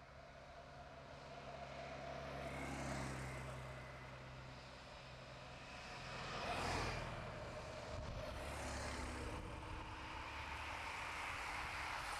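A motorcycle's engine running past close by, along with the rush of a bunch of racing bicycles going by; the loudest pass comes a little after the middle.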